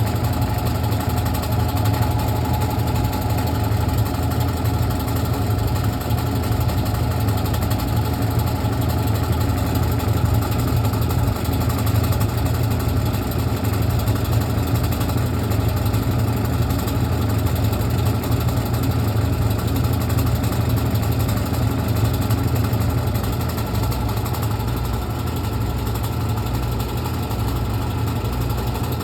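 Brastemp Clean washing machine running through its wash cycle: a steady motor hum with a strong low drone, dipping slightly a few seconds before the end.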